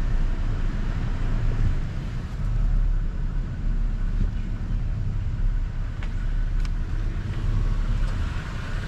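Car driving slowly, heard from inside the cabin: a steady low engine and road rumble with a few faint ticks.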